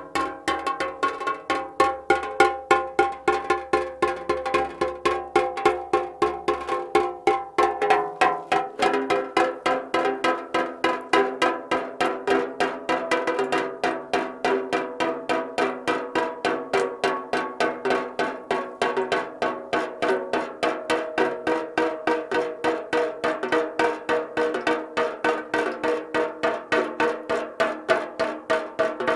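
Raindrops falling fast onto a metal can. Each drop is a sharp tap that rings with the can's hollow metallic pitch, about four or five taps a second, in an even, unbroken run.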